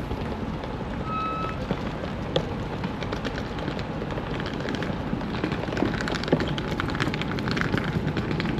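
Wind and road noise from riding a bicycle through city streets, heard on an action camera's microphone: a steady rumble and rush. A short high beep comes about a second in, and rattling clicks grow denser in the second half.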